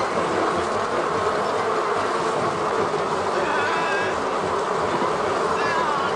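A dense, steady droning noise in an animated film's soundtrack, strongest in the middle range, like a swarm of flies. A few faint, short whistling glides come through it about halfway and near the end.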